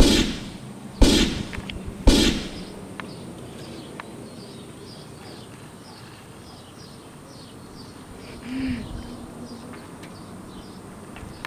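Three sudden swishing bursts about a second apart, each sweeping down in pitch, followed by faint, scattered high chirps of birds in the background.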